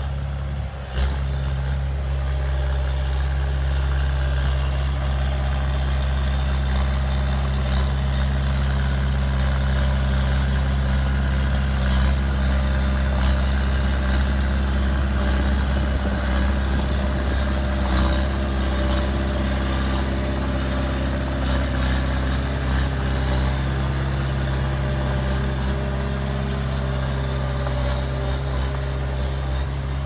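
Komatsu D20A small crawler bulldozer's diesel engine running at a steady pace while its blade pushes soil.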